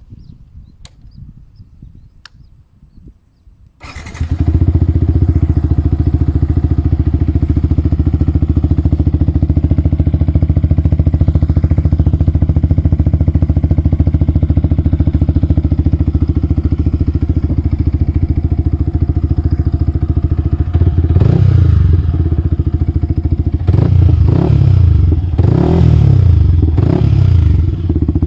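Yamaha YZF-R15 V3's 155 cc single-cylinder engine, fitted with an Akrapovic replica exhaust, starting about four seconds in and idling steadily. Near the end it is revved in several short blips that rise and fall.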